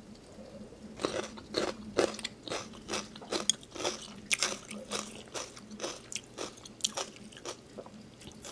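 Close-miked eating of instant noodles: wet chewing with a quick, irregular string of mouth clicks and smacks, starting about a second in.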